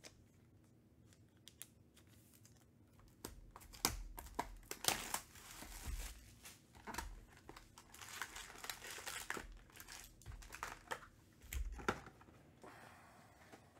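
Cellophane shrink wrap being torn and crinkled off a trading-card hobby box, with a few knocks as the box and packs are handled on the table. It starts a few seconds in and dies down near the end.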